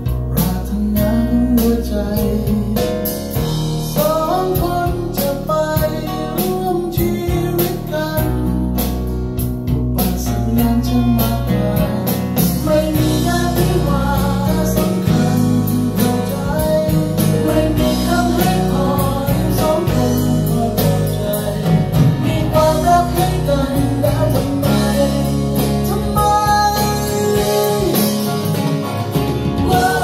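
A song with singing and guitar played back through ProAc D20r floor-standing speakers, driven by a Bryston BCD-3 CD player and B135 integrated amplifier.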